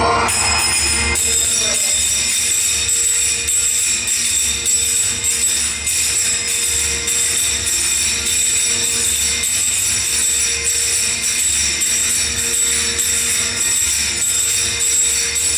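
Dance music with a steady, even beat and bright jingling percussion like a tambourine or shaker.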